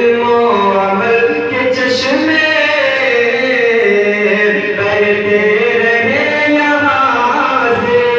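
A man singing a devotional Urdu tarana in a chant-like melody, drawing out long held notes that rise and fall.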